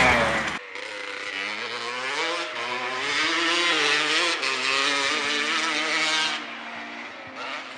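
Motocross bike engine revving as the bike rides along, its pitch climbing and wavering with the throttle, then dropping away about six seconds in.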